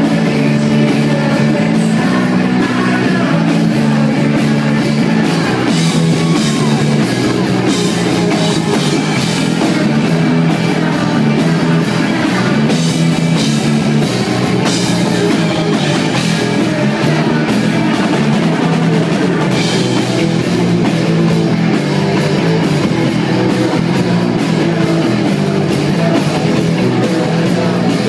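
Live rock band playing loud and steady: a bass guitar riff with electric guitar and a drum kit.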